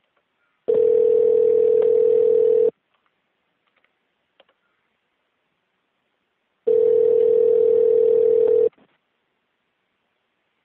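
Telephone ringback tone on an outgoing call: two rings, each about two seconds long with four seconds between, a steady low hum-like tone. The called phone is ringing and has not yet been answered.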